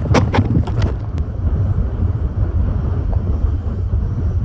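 Strong wind buffeting the microphone: a loud, steady low rumble. A few sharp knocks in the first second.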